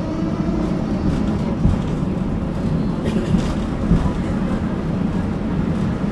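Tram running along the track, heard from inside the passenger car: a steady low rumble of wheels on rails with a few short knocks. The traction motor's whine, rising in pitch, fades out in the first second.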